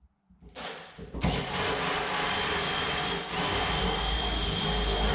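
Power drill boring into a wooden door with a 25mm Forstner bit for the handle spindle hole. It starts about half a second in and runs steadily with a high whine, dipping briefly partway through.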